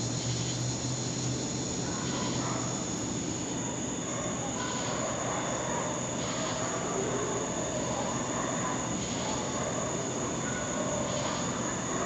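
Steady high-pitched drone of night insects in a chorus, with distant dogs barking now and then under it.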